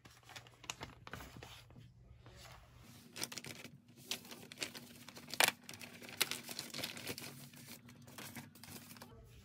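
Clear plastic packaging crinkling and rustling as it is handled, with a sharper crackle about five and a half seconds in.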